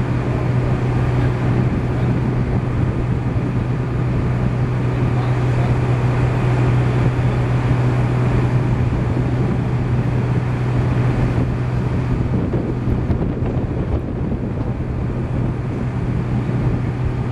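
Engine running at a steady speed: a constant low hum.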